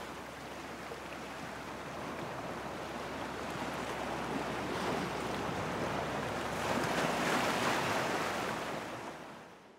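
Sea waves washing as a steady rush of noise that swells about seven seconds in, then fades out near the end.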